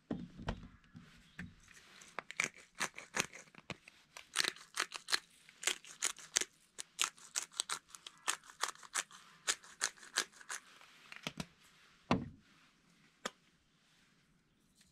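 Black pepper being ground from a hand pepper mill: a run of crisp grinding clicks, about three or four a second, for around eight seconds. Before it come a few low knocks, and after it one loud knock and a single click.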